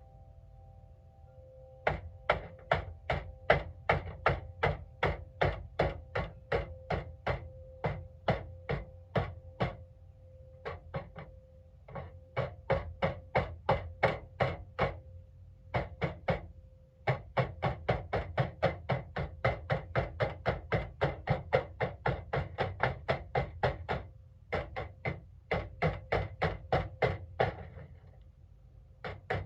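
Hammer striking the metal Craftsman toolbox to beat out its dents, in fast even runs of about three blows a second with short pauses between runs.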